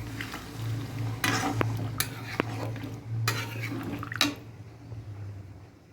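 A spoon stirring chicken curry in a cooking pot just after hot water has been added: several scraping strokes against the pot with a couple of short metallic clinks, quietening near the end.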